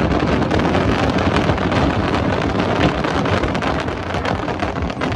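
Dense fireworks barrage: a continuous, loud rumble of many overlapping bursts and crackles, with no single boom standing out.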